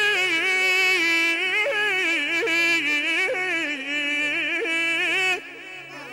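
A man singing a long wordless melisma into a microphone, the pitch of one held vowel wavering in quick trills and turns. It breaks off about five seconds in, and the music carries on more quietly.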